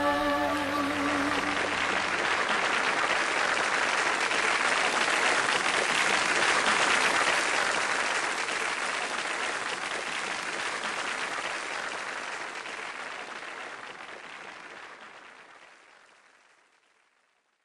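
An audience applauding in a steady dense clapping that slowly fades out to silence over the last several seconds.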